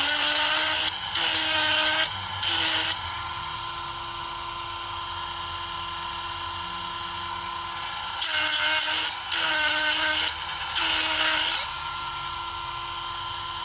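A 12-volt chain-sharpening grinder running with a steady whine while its stone grinds a saw chain cutter tooth in short strokes: three strokes at the start and three more about eight seconds in, the motor note dipping slightly each time the stone bites into the tooth.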